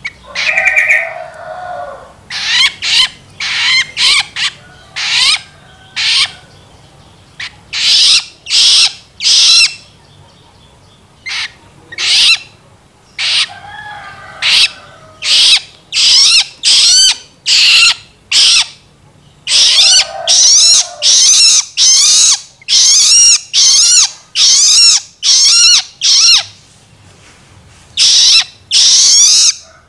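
Juvenile long-tailed shrike (cendet) giving loud begging calls: short, high, wavering notes repeated over and over. They come about one a second, pause briefly midway, then come faster, nearly two a second, in the second half.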